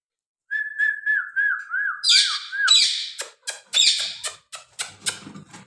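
Ringneck parakeet calling: a run of about seven quick, evenly spaced whistled notes, then a string of loud, harsh squawks that trail off near the end.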